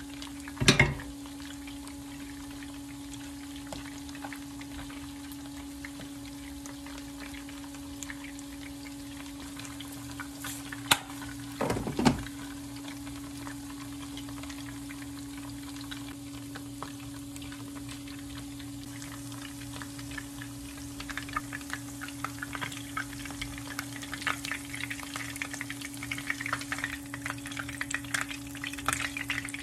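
Noodle-wrapped shrimp deep-frying in a shallow pan of oil, crackling and sizzling from about two-thirds of the way in. Before that, a steady low hum with a sharp knock less than a second in and another pair around eleven to twelve seconds in.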